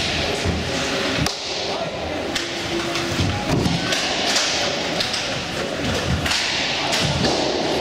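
Irregular knocks and thumps of inline roller hockey play, from sticks, puck, skates and rink boards, in a large echoing sports hall.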